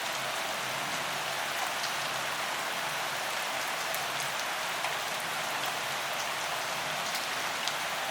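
Steady rain falling, a constant hiss with scattered sharp drips and drop impacts.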